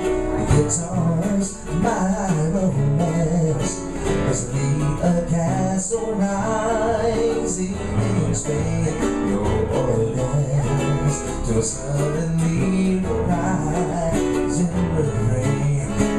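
Live Hawaiian song: acoustic guitar, ukulele and a small banjo strummed together, with a singer's wavering voice over them.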